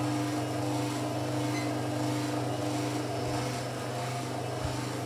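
Electric kitchen mixer's motor running with a steady, unchanging hum.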